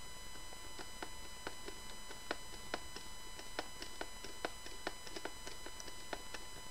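Screwdriver clicking as it is twisted back and forth to tighten the top screws of a weather station's plastic radiation shield: a steady run of small sharp clicks, about three a second, typical of a ratcheting driver.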